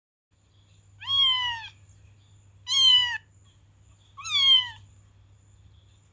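A domestic cat meowing three times, each meow about half a second long and falling in pitch, over a faint low hum.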